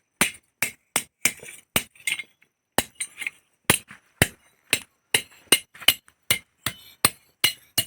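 Hand hammer striking steel on an anvil, forging a dao blade: a run of sharp metallic blows, about two to three a second and unevenly spaced.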